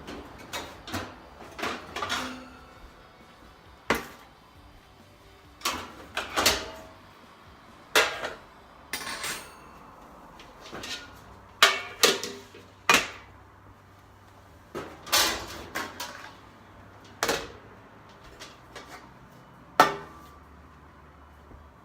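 Metal bakeware clanking and clattering as pans are taken out of a drawer and handled: irregular sharp knocks, one every second or so.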